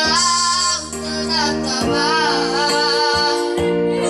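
Boys singing a song into a microphone to electronic keyboard accompaniment, their voices wavering on long notes over sustained keyboard chords.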